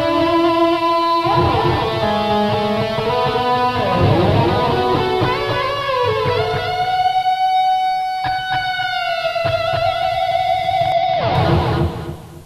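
Recorded rock music led by an electric guitar: a run of quick notes, then one long held note, then a fast downward sweep near the end.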